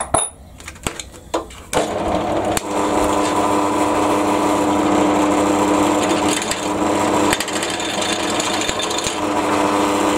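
A few clicks and knocks, then about two seconds in a pillar drill starts running and a 36 mm bit bores into a wooden blank with a steady, pitched hum. The cheap bit is not centring, in the owner's view.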